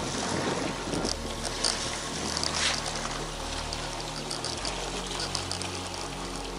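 A low, steady motor hum, like an idling boat engine, whose pitch shifts about a second in and again near the end, under a constant hiss of wind and sea.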